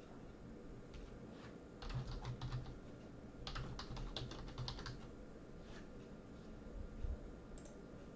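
Computer keyboard typing: two short runs of quick keystrokes, about two and three and a half seconds in, with a few single key clicks around them.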